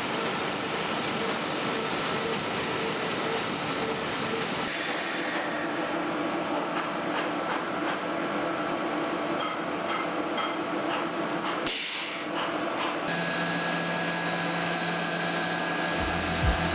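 Steady industrial noise of a soil-washing and slurry-dewatering plant: slurry rushing through pipes and tanks over running machinery. The mix changes abruptly a few times, and a steady low motor hum comes in for the last few seconds.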